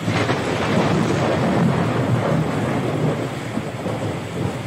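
A roll of thunder over steady rain: it breaks in suddenly, deep and loud, runs for about four seconds and dies away near the end.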